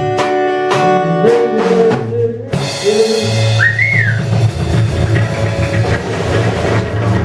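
Rock music: strummed guitar chords under a sung melodic line, then the full band with drums and bass comes in about two and a half seconds in.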